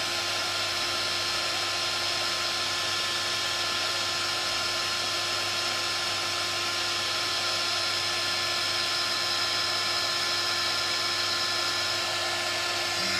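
Embossing heat gun running steadily: an even blowing hiss with a thin constant whine. It is warming up over grey embossing powder on card, before the powder starts to melt.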